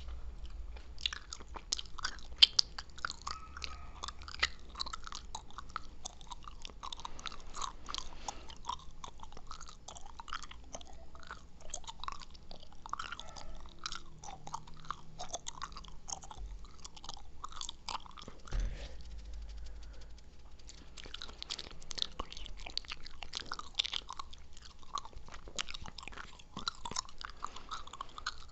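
Close-miked gum chewing and wet mouth sounds: a fast, uneven run of small clicks and smacks, with a short low thump about two-thirds of the way through.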